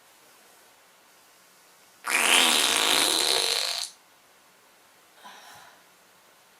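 A long fart lasting about two seconds, starting about two seconds in and cutting off fairly sharply, followed a second later by a short faint sound.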